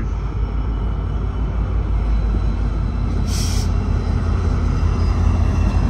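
EMD F59PH diesel locomotive running under power as it pulls past, a loud, steady low engine sound that builds slightly toward the end. A short hiss of air comes about three seconds in.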